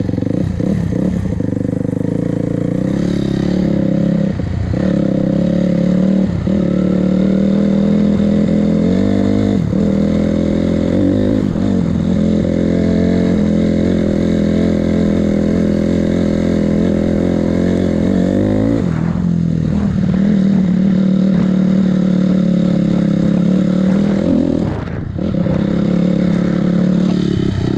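Freshly rebuilt 2006 Honda CRF250R's single-cylinder four-stroke engine running under way. The engine note dips briefly several times and drops off clearly about two-thirds of the way through and again near the end. The owner says the bike is still not running right.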